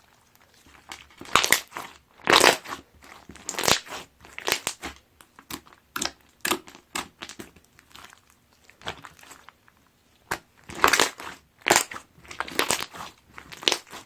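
Cereal-filled slime being squeezed and pressed by hand, crackling and crunching in irregular bursts, with a quieter stretch in the middle.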